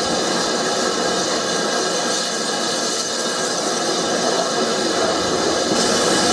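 BR Standard Class 5 steam locomotive hissing steadily as steam blows out around its cylinders, getting sharper near the end.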